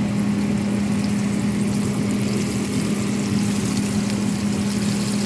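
Chicken frying in hot oil, sizzling and crackling steadily, over a constant low hum that is the loudest part of the sound.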